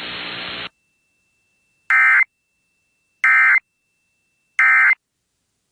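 Three short Emergency Alert System digital data bursts (SAME end-of-message code), harsh buzzing chirps about 1.3 s apart, marking the end of a weather radio alert. A radio hiss cuts off under a second in, before the bursts.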